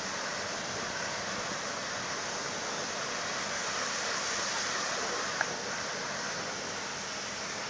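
Pressure-washer lance spraying a steady hissing jet of water onto overalls hung on a plastic tank. A single short click a little past halfway.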